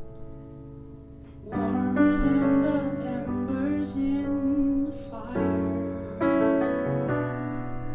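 Soft piano chords, then a voice starts singing over the piano accompaniment about a second and a half in.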